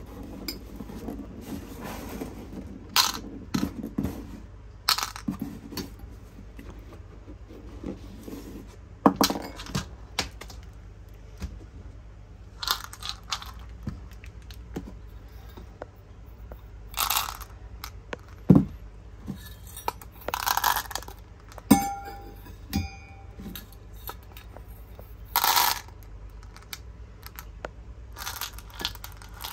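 Irregular clinks, clicks and short rustles of small hard objects being handled, a few of them sharper and louder than the rest, over a faint steady low hum.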